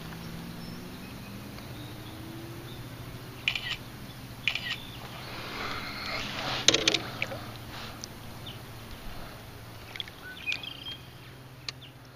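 Electric trolling motor humming steadily, with scattered knocks and clicks of gear on the canoe and a brief splash of water about six and a half seconds in.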